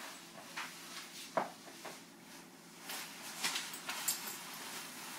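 Soft rustling of a nylon MA-1 bomber jacket as hands work into its pockets, mostly in the second half, with a few light clicks and one sharper tap about a second and a half in.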